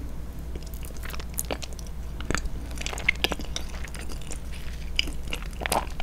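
Close-miked chewing of warm, soft fondant chocolat cake with a molten centre, with short wet mouth clicks and smacks, over a steady low hum.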